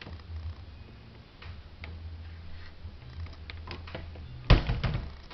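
Scattered light clicks and taps as a PVC kitchen cabinet door is handled, then a louder knock with a brief clatter about four and a half seconds in.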